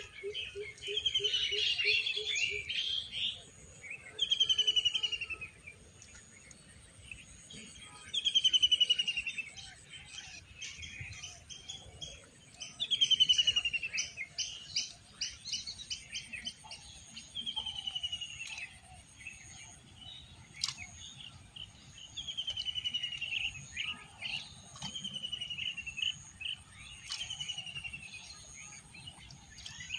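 A bird calling over and over: a loud whistled call sliding down in pitch, repeated every few seconds, with a thin steady high insect buzz behind it. A low rapid pulsing call runs through the first couple of seconds.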